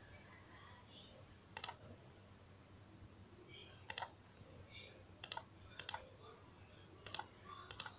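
Computer mouse clicking: about six sharp, separate clicks at uneven intervals, each a quick press-and-release.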